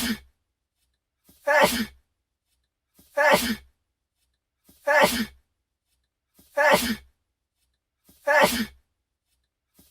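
A young man sneezing, the same sneeze repeated at even intervals about every second and a half, six times. Each is a short sharp burst with a faint catch of breath just before it, and silence between.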